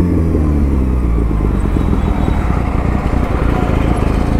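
Kawasaki ZX-6R sport bike's inline-four engine running at low revs, its pitch settling lower in the first second after the throttle is eased off.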